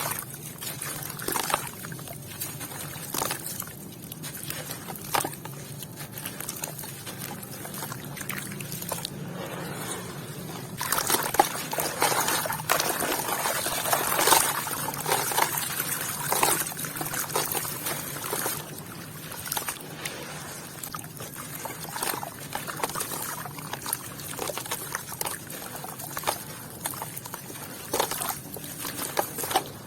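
Wet sand and red dirt with small white stones crumbling and falling into water, trickling, with many short clicks of stones. A louder, denser run of pouring and splashing comes in the middle.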